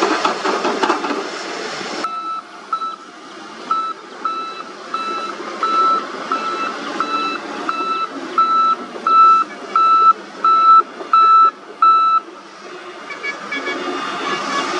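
Excavator engine and digging noise for the first two seconds, cut off sharply. Then a dump truck's reversing alarm beeps steadily, about one and a half to two beeps a second, louder toward the end before it stops, over a diesel engine running.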